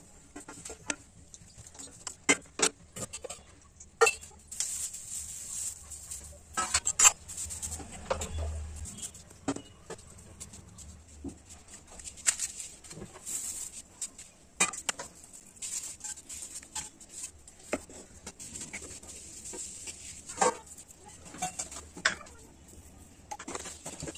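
Irregular clinks, taps and scrapes of metal kitchen utensils against a pan and a steel plate, over a faint steady hiss.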